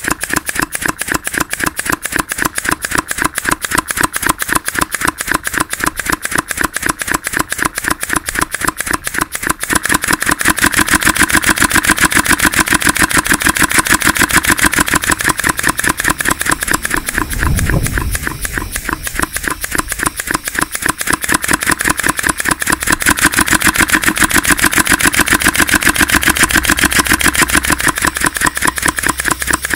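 3D-printed V-twin compressed-air engine running, its quick exhaust valves letting the air go in a rapid, even train of sharp cracks, several a second. The cracks grow louder about a third of the way in, ease for a moment around a low thump midway, then come back loud.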